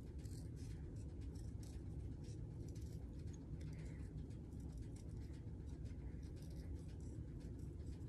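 Small scissors snipping paper as a printed photo is cut out by hand: a quick, irregular run of faint snips, several a second, over a steady low background hum.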